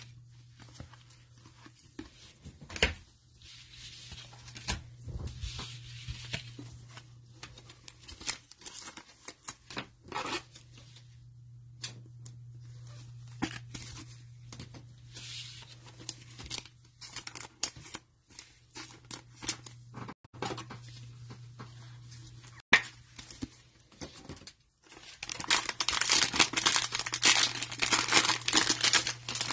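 Cellophane-wrapped trading card packs being handled and opened: scattered rustles and clicks, then about 26 seconds in a long, louder stretch of wrapper tearing and crinkling. A steady low hum runs underneath.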